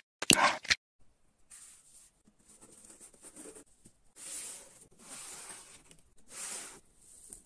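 A brief loud swish right at the start, then faint rustling and scraping of cardboard and paper being handled and pressed into place, in several short bursts.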